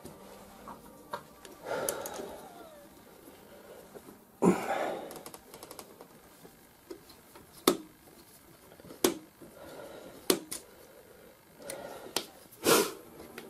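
Tool clicking and scraping on a screw in the block of a Brocock Concept Elite air rifle as the screw is loosened. It makes a handful of sharp clicks, one every second or two, with short scrapes between them.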